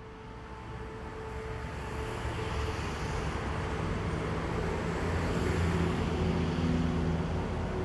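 City traffic rumble, a steady low noise of road vehicles, fading in and rising over the first couple of seconds, with a few faint steady tones running over it.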